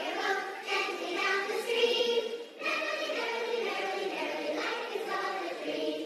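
Music track of several voices singing together, with no bass and a short break about halfway through.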